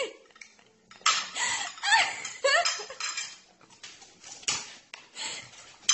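Cutlery clinking and scraping on a plate during a meal, with a person's voice over it in places.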